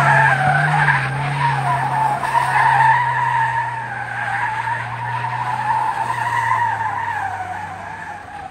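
Mahindra Thar doing donuts, its tyres squealing continuously in a wavering high pitch over the steady drone of the engine held at high revs. The squeal and the engine fade away near the end.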